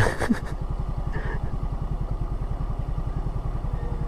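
A small motorcycle engine running steadily, with an even, rapid pulsing beat.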